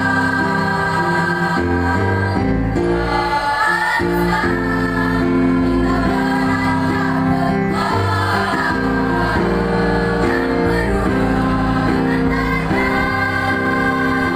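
Mixed choir of teenage boys and girls singing in harmony, holding sustained chords that change every second or two.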